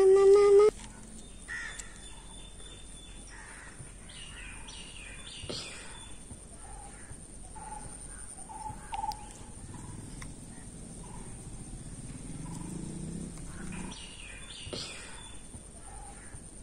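Crows cawing now and then, with other birds calling, over quiet open-air ambience. A brief loud rising tone opens it, cutting off within the first second.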